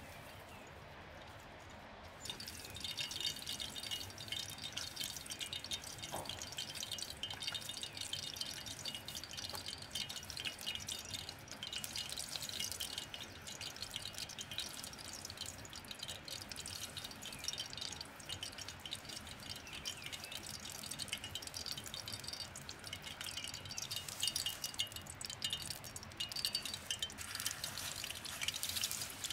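Hot oil in a frying pan over wood embers, crackling and spitting in a dense stream of small pops that starts about two seconds in. Near the end the sizzle grows louder as raw ground-meat kebab is pressed into the oil.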